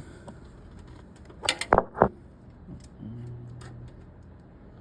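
Three sharp clicks or knocks in quick succession about a second and a half in, then a brief low hum near the end.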